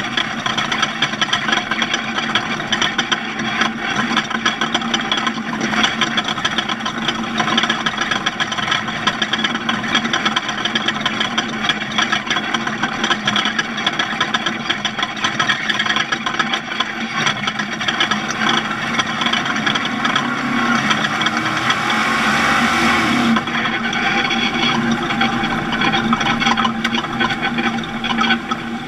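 A vehicle engine running at a steady pitch, with a brief louder rushing surge about twenty seconds in.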